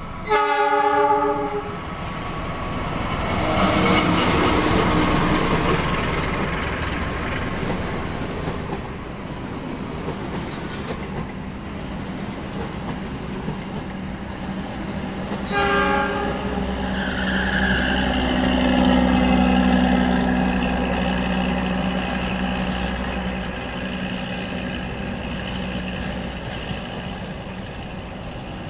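Passenger train passing close by at speed: the locomotive horn sounds for about a second at the start, then the rumble and clatter of the coaches going past. A second short horn blast comes about halfway through.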